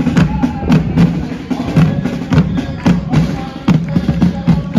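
A group of marching drummers beating large side drums with sticks in a steady marching rhythm, over a continuous low drone.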